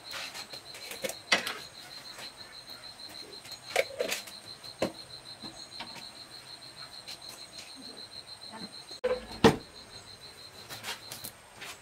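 A steady, high, finely pulsing insect trill, with scattered knocks and clicks over it; the loudest knock comes about nine and a half seconds in.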